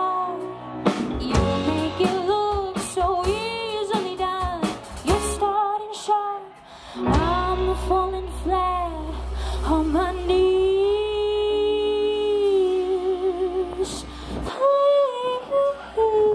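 Live band playing: a woman singing lead over electric guitar, bass guitar and drum kit. Her voice holds a long note with vibrato about two-thirds of the way through, and the deep bass drops out shortly after.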